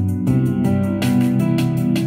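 Instrumental electronic music: sustained keyboard chords over a steady beat.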